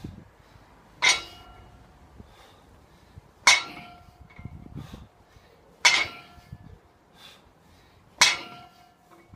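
Barbell loaded with metal weight plates set down on the ground once every rep, a metallic clank that rings briefly; four clanks about two and a half seconds apart.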